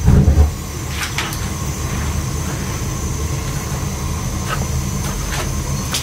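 Williamson GSA-250 gas steam boiler's burners firing: a steady low rumble, louder for the first half second, with a few faint clicks.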